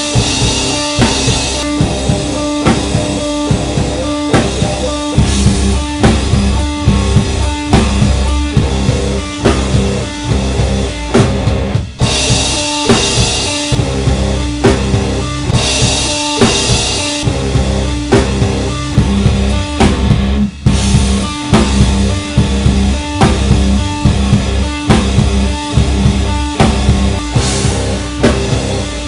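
Rock band playing live, the drum kit and electric guitar picked up together by the camera's built-in microphone. The drums keep a steady beat throughout, and crashing cymbals wash over it twice in the middle.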